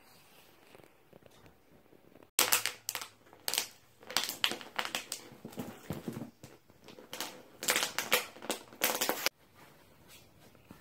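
A dog mouthing and shaking a crinkly toy: bursts of crinkling and crunching that start suddenly a couple of seconds in and stop suddenly near the end.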